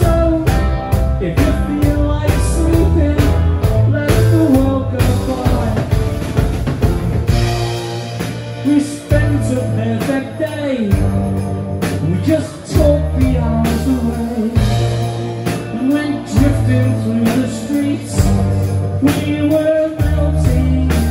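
Live rock band playing amplified: electric guitar, bass guitar and drum kit, with a male lead vocal singing over them.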